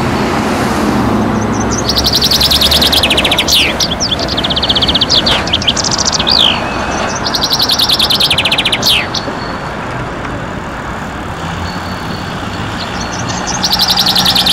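A songbird singing loud repeated phrases, each a fast rattling trill followed by a few sharp down-slurred notes, several times with pauses between. Under it runs the steady rumble of street traffic and a passing tram.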